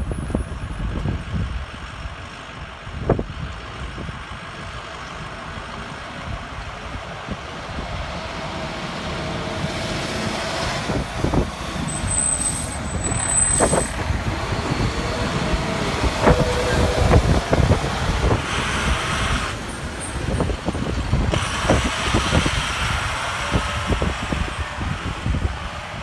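Fire trucks and an ambulance driving past, their engines growing louder through the middle and easing off near the end.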